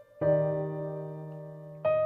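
Slow, soft piano music: a chord is struck about a fifth of a second in and left to ring and fade, and another note comes in near the end.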